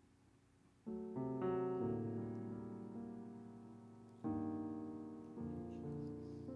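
Piano playing slow, soft chords. The first chord is rolled in about a second in, fresh chords follow about midway and again a second later, and each is left to ring and fade.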